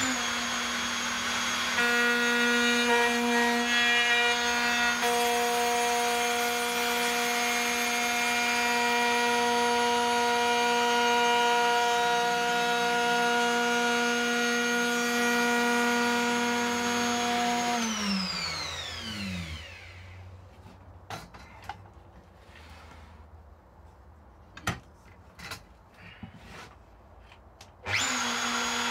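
Triton router running at speed with a steady high whine, its cutter cutting into the wooden Telecaster body. About eighteen seconds in it is switched off and winds down with falling pitch, followed by a few light clicks and knocks, and it starts up again near the end.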